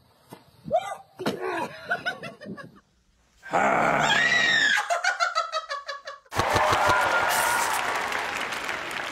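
Short vocal outbursts, then a woman's high scream that breaks into rapid laughter. About six seconds in, a loud hissy sound effect with a faint tune over it starts and runs on.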